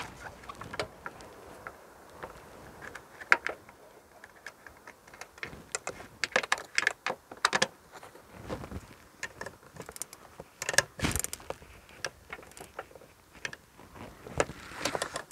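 Irregular clicks, ticks and light knocks from hand-tool work, some in short quick runs: a socket wrench tightening the nut that holds the rear glass.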